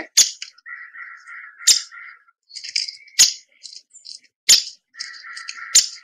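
Recorded downy woodpecker calls: sharp pik notes about every one and a half seconds, with rapid rattling whinny runs between them.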